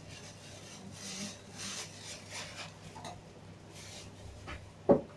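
Small Lego pieces and plastic parts bags being handled on a tabletop: a few soft rustling, scraping strokes, then a single sharp knock near the end.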